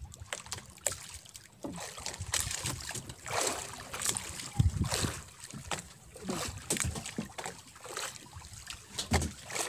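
Water slapping and splashing against a small fishing boat's hull, with irregular knocks and clunks on board.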